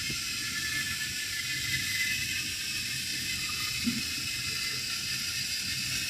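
Heavy rain falling steadily, an even hiss with a low rumble beneath it.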